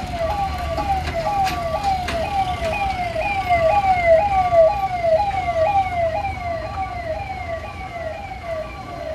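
Electronic level-crossing warning siren wailing in quick falling sweeps, about three a second, with a higher steady beep that comes and goes, warning that the gate is about to close for a train. It swells in the middle and fades a little near the end, over the low rumble of road traffic crossing the tracks.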